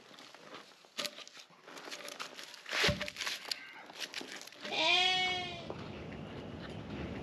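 Pine logs being handled and stacked on a log pile: bark scraping and knocking, with a dull thump about three seconds in as a log is set down. About five seconds in, an animal gives one drawn-out bleat that rises and falls.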